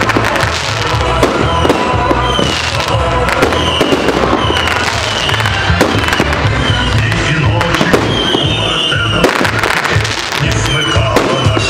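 Fireworks display: a dense run of bangs and crackling from aerial shells bursting and being launched, going on without a break.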